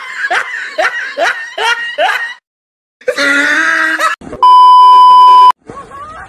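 A loud, steady electronic beep tone lasting about a second, in the second half; it is the loudest sound here. Before it, a voice gives about six short rising yelps, cuts out suddenly, and then comes back with a second of shouting just before the beep.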